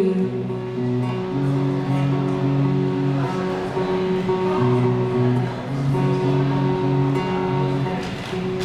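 Strummed acoustic guitar chords playing the song's instrumental outro, a little quieter near the end.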